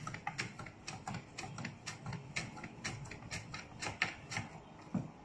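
Tupperware Mandochef plastic mandoline slicer: the food holder is pushed quickly back and forth across the blade, slicing a carrot paper-thin, a fast run of clicks and scrapes about three to four a second. A single thump comes just before the end.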